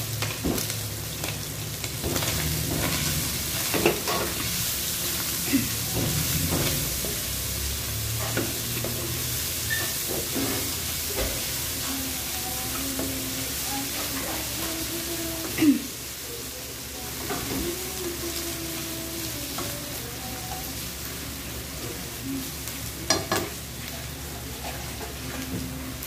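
Beef with chopped onion and garlic sizzling in a frying pan while it is stirred with a spatula. A few sharp knocks of the spatula against the pan stand out over the steady sizzle.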